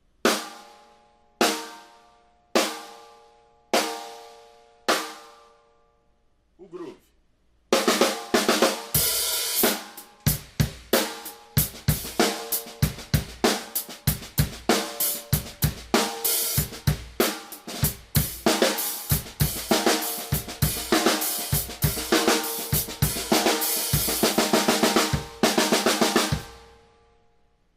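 Mapex Black Panther Machete 14x6.5 metal snare drum at its highest tuning: five single rim shots about a second apart, each ringing out. From about eight seconds in, a full drum kit groove follows, with bass drum, hi-hat and cymbals around the snare, and it stops a second before the end.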